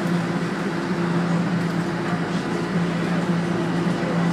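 Bombardier Toronto Rocket subway train heard from inside the car as it pulls away from a station: a steady low hum over continuous running noise.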